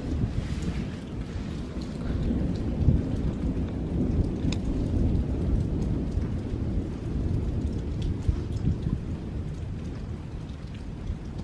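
Thunder rumbling low and unevenly through a thunderstorm, with rain falling and a few drops ticking close by.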